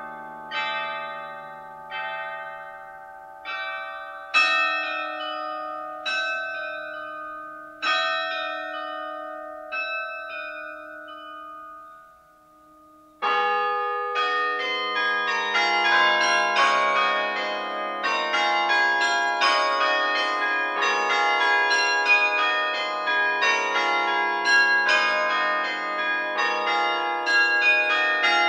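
Carillon bells struck from the baton keyboard. First come slow, spaced chords that each ring out and die away, then a brief hush, and about thirteen seconds in a fast, dense passage with many bells sounding at once.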